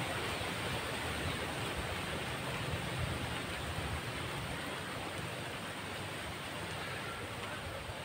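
Steady rushing hiss of wind through the surrounding foliage, with a low irregular rumble of wind buffeting the microphone.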